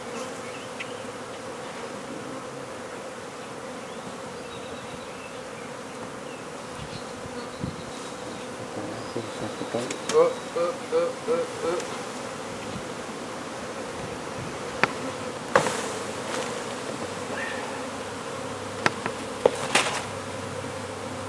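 A mass of honey bees buzzing with a steady hum, stirred up by the hive being cut out. The buzz swells in a quick run of short pulses about halfway through, and a few sharp knocks or clicks come later.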